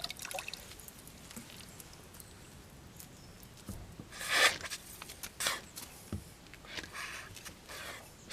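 A rubber toilet plunger worked against a wet truck door panel: several short wet squelching bursts, the loudest about four seconds in, with a couple of dull knocks between them.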